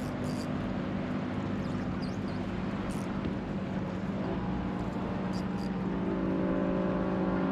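Fishing boat's outboard motor running steadily at trolling speed, a low drone that grows fuller about six seconds in.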